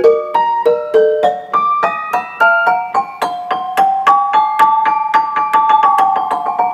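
Grand piano prepared with screws and bolts wedged between its strings, played one note at a time in a quick run that speeds up in the second half. Each note is a sharp strike that rings with altered, metallic overtones from the inserted hardware.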